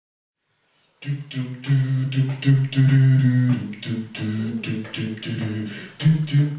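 Beatboxing into a hand-held microphone, starting about a second in: a low sung bass line under regular mouth-percussion hits, about three a second.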